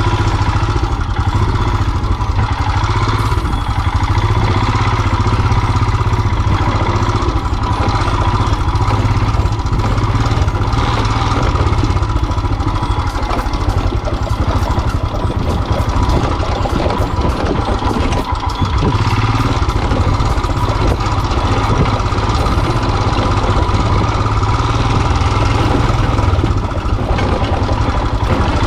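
Royal Enfield single-cylinder motorcycle engine running steadily at a low, even speed.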